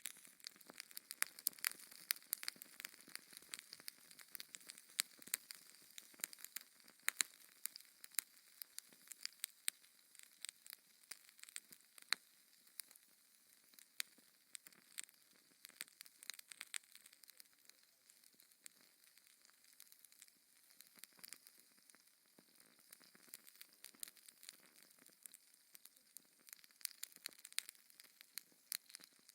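Wood fire crackling in a fireplace: frequent sharp pops and snaps at an irregular pace over a faint, steady hiss.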